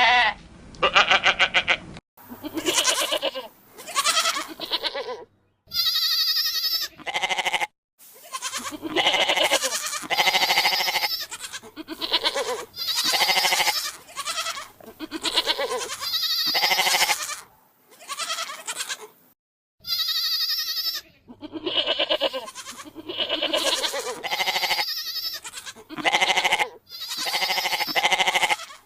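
Goat and ibex bleats: a long run of separate pitched calls, each about a second long, one after another, several of them starting and stopping abruptly.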